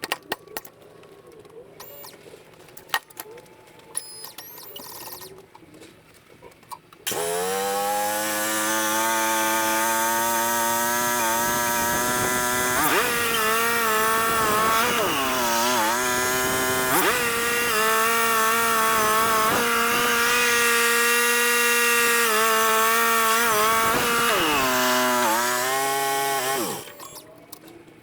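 Wood-Mizer LT35 portable band sawmill starting up about seven seconds in, quickly rising to speed, then running steadily, sawing a cottonwood log. Its pitch dips briefly a few times under load, and it shuts off about a second before the end. Before it starts there are a few light clicks and knocks.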